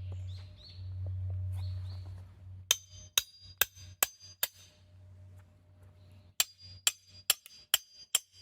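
Firewood being split by hammering, with ringing metal-on-metal strikes at about two blows a second in two runs, starting about three seconds and six seconds in. A low steady drone comes before the first strikes.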